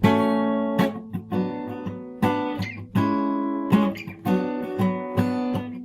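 Acoustic guitar strumming chords between sung verses of a song.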